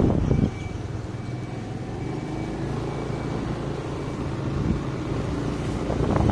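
Vehicle driving along a road: a low engine and tyre rumble, louder and rougher for about the first half second, then steadier.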